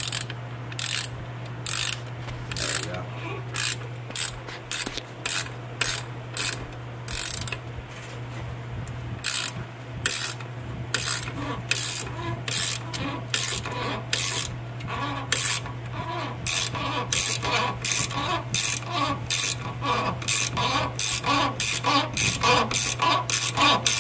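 A 14 mm ratcheting wrench clicking through stroke after stroke as it tightens the top nut of a car's rear shock absorber. The clicks come faster and more evenly in the second half, over a steady low hum.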